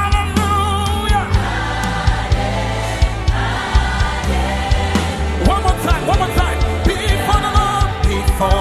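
Live gospel worship music: a choir of singers holding wavering notes over steady bass and a regular drum beat.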